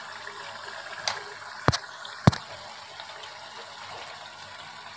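Tomato-onion masala bubbling and sizzling in oil in a karahi, a faint steady hiss. Three sharp clicks a little after a second in, about half a second apart: a steel spoon knocking against the metal pan.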